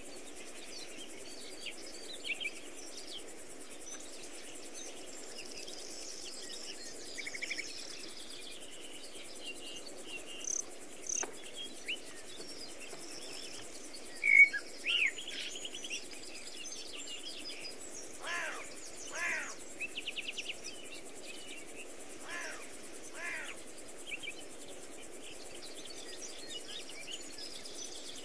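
Several birds chirping and trilling over steady low background noise, with one louder, closer call about halfway through and a few lower repeated calls after it.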